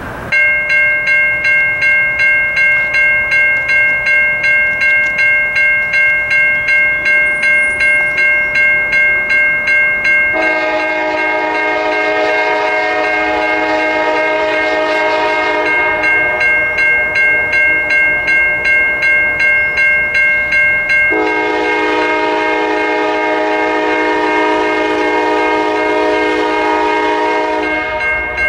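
Freight train passing with a bell ringing steadily, about two and a half strikes a second. Its diesel locomotive horn sounds two long blasts, a multi-note chord, the second one longer.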